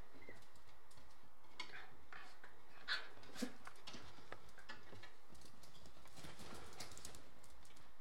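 Two Shiba Inu puppies play-fighting: irregular scuffling and claw clicks on a hard floor, with two louder knocks about three seconds in.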